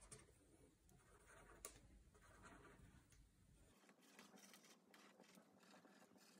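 Very faint taps and scratches of a black pen dotting pupils onto paper, with a slightly louder tap about one and a half seconds in; otherwise near silence.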